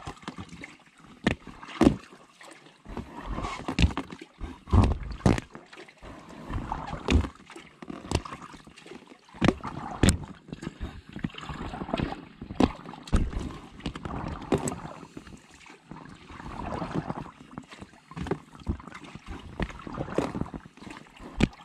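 Kayak paddling: a double-bladed paddle dipping and pulling through lake water in repeated strokes, with sharp drips and splashes falling close by between the strokes.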